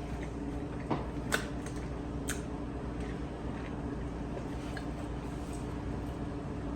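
Eating sounds: a few soft clicks and smacks, the sharpest about a second and a half in, over a steady low hum.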